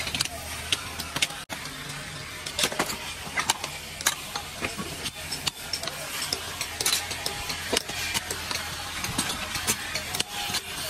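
Scattered metal clinks and knocks of scrap electric motors being handled and struck in a pile, over a steady low mechanical hum.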